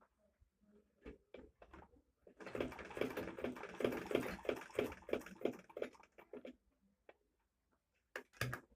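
Butterfly manual sewing machine stitching a run of stitches at about three stitches a second for roughly four seconds, starting about two and a half seconds in. Scattered light clicks come before it, and a few sharper knocks follow near the end.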